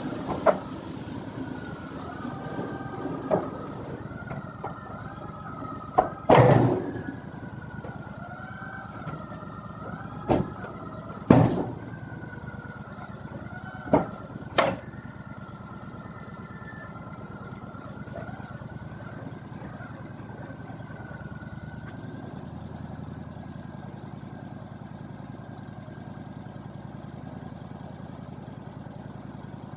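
A machine running steadily with a wavering high whine, broken by about eight sharp knocks and bangs in the first fifteen seconds; the whine stops a little past twenty seconds in.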